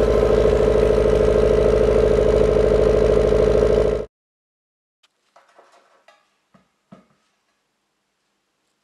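Subaru Impreza's flat-four boxer engine idling at the exhaust tip, a steady pulsing run that cuts off suddenly about four seconds in. After it only a few faint clicks and taps are heard.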